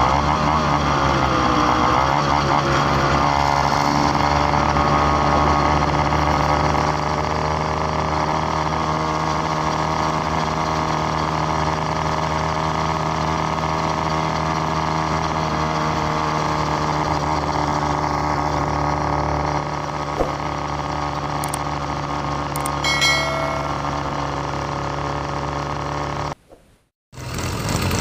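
A small engine running steadily at cruising speed, a constant hum with wind and road noise over it. Near the end the sound drops out for about half a second, then returns.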